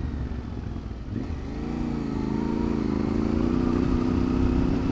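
Yamaha Tenere 700's 689 cc parallel-twin, breathing through an aftermarket full exhaust (Akrapovic header, Scorpion slip-on), heard on board the moving bike. Just over a second in, the engine note comes up out of a low rumble, wavers and climbs as the bike picks up speed, then settles into a steady pull near the end.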